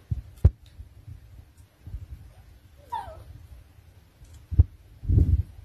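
Jack Russell terrier puppy giving a short whimpering whine that falls in pitch, about three seconds in, amid a few low thuds.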